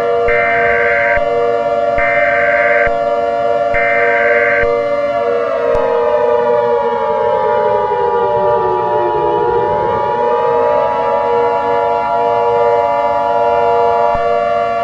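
A civil defense siren sounds throughout: steady, then dipping slowly in pitch and rising back in the middle. Over it come three short bursts of Emergency Alert System data-header tones in the first five seconds. A steady two-tone EAS attention signal starts at about six seconds and stops shortly before the end.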